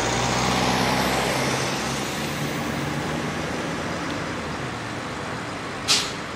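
Vintage Mercedes-Benz bus engine running at low revs as the bus pulls slowly across the lot. The engine is louder for the first couple of seconds, then eases off. Near the end comes a short, sharp hiss, the loudest sound.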